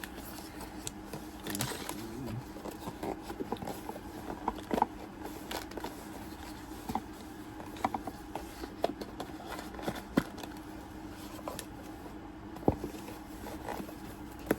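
Cardboard box and packaging being handled: scattered sharp clicks, taps and light scrapes at irregular intervals, over a steady faint hum.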